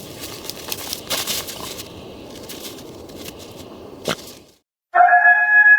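Crunching, crackling steps in snow with scattered clicks and one sharp click near the end. After a brief gap, a loud sustained high tone starts suddenly just before the end.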